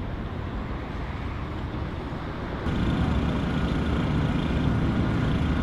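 Steady city street traffic noise, a low even rumble that steps up suddenly, louder and deeper, about two and a half seconds in.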